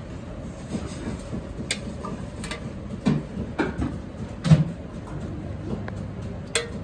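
Scattered clinks and knocks of a metal ladle against a stainless steel mixing bowl, the loudest about four and a half seconds in, over a steady background hum.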